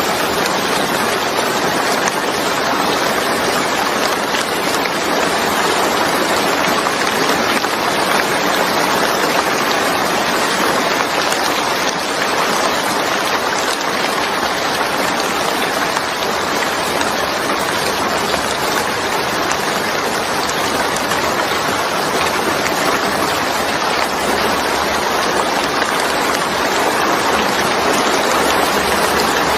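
Steady rain falling, a continuous even hiss of rain with no distinct drops or thunder standing out.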